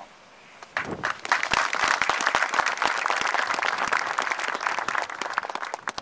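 Audience applauding. The clapping starts about a second in and dies away just before the end.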